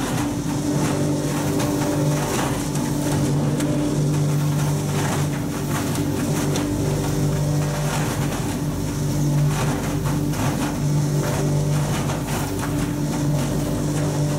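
Isol Multispeed insulation blowing machine running steadily, its 2.2 kW blower and carding hopper working as loose-fill insulation is fed in and blown out through the hose: a constant hum over a rush of air, with irregular small clicks.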